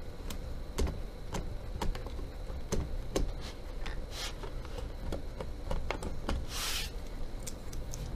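A small blade scoring and scraping the bottom of a drone's landing gear tube: a run of small scratches and clicks, with one longer scrape about six and a half seconds in.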